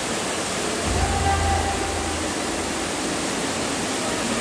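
Steady rushing hiss like falling water, with a deep low hum swelling in from about one to two seconds in.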